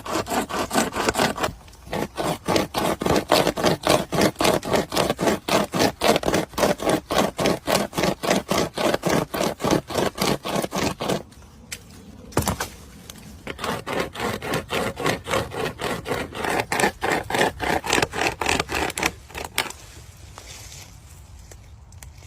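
Manual pocket chainsaw being pulled back and forth through wood in quick, even rasping strokes. It stops about halfway, with a single knock in the pause, then saws again and stops a few seconds before the end.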